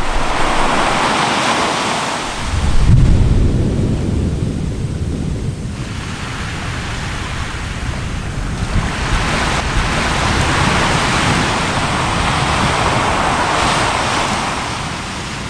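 Anak Krakatau erupting: a deep boom about two and a half seconds in, then a noisy rush that swells and fades away twice.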